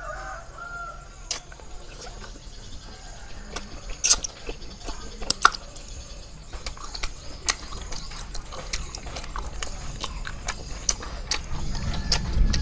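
Close-up eating sounds of caramelized pork skin being bitten and chewed: wet, sticky smacking with many sharp clicks scattered throughout.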